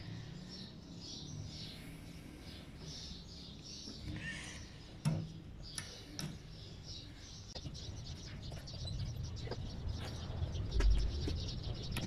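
Birds chirping faintly in the background, with a few sharp clicks from wires and connectors being handled, the loudest about five seconds in.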